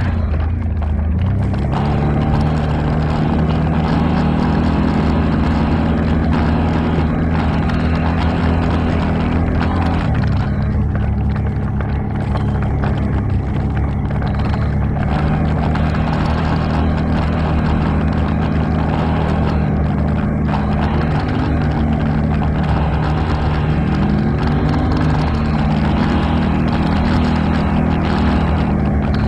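ATV engine running steadily under way. Twice, late on, its pitch briefly rises and falls as the throttle changes.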